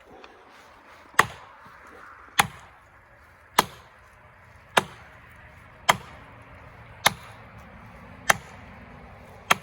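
Eight evenly paced blows, about one every 1.2 seconds, driving a felling wedge into the back cut of a tree that will not tip over.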